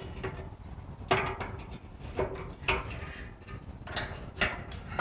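A wrench turning a rusted bolt inside a steel 55-gallon drum: about five sharp metallic clinks at irregular intervals, some ringing briefly in the drum.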